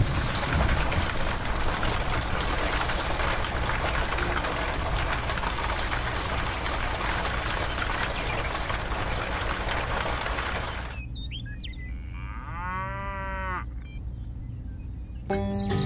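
Steady rushing storm noise, like heavy rain, that cuts off suddenly about eleven seconds in, followed by one drawn-out cow moo. Music comes in near the end.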